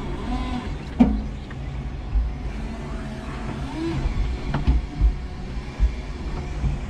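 5-ton electric forklift truck at work, heard from its cab: a steady low motor hum with faint whining tones that slide in pitch. A sharp knock comes about a second in, and a few smaller clunks follow near the end.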